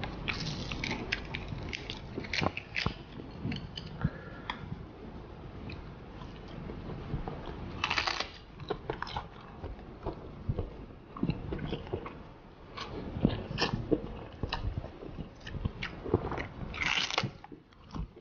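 Crisp roasted seaweed sheets being bitten and chewed close to the microphone: a steady stream of sharp crackles and crunches, with two longer crackling bursts about eight seconds in and near the end.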